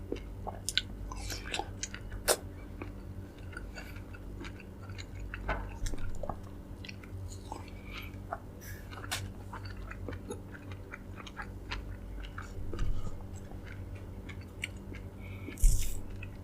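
Close-up chewing of soft, juicy dragon fruit: irregular wet clicks and smacks of the mouth, with a louder bite or slurp near the end. A steady low hum runs underneath.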